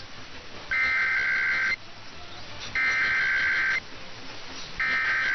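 Emergency Alert System SAME digital header: three bursts of a rapid two-tone data warble, each about a second long and a second apart, the coded signal that opens an alert before its spoken message.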